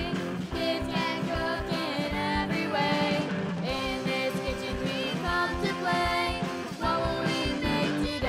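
Band music: a song with a singing voice over a steady drum beat.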